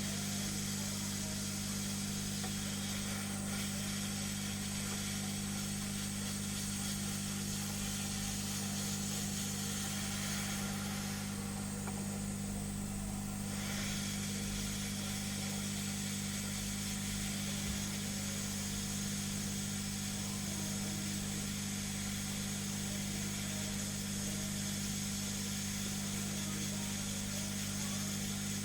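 Hot air rework gun blowing steadily: a constant fan hum with an even rush of air, the hiss shifting briefly about halfway through.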